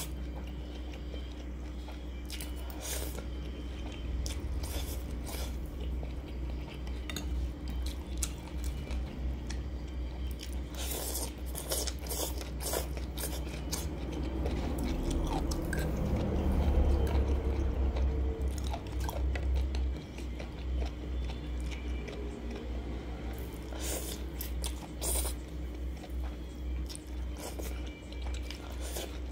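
Close-miked eating sounds: a person slurping and chewing spicy instant noodles, with frequent short clicks. There is a louder stretch a little past the middle.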